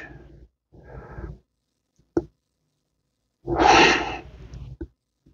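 A man breathing between remarks: a faint breath about a second in, then a louder exhale past the middle. A sharp single click comes about two seconds in, with a small one near the end.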